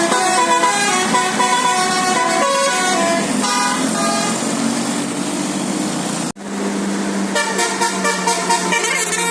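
Bus 'basuri' telolet musical horn playing a tune of short stepped notes. About six seconds in it cuts off abruptly, and a tune over a steady low drone follows.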